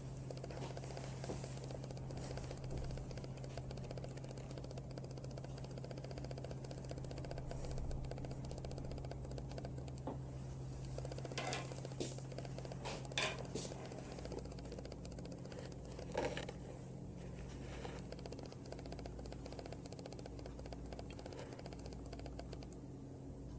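Room tone with a steady low hum, broken by a few small sharp clicks and knocks: a short cluster a little before the midpoint, the loudest about thirteen seconds in, and one more a few seconds later.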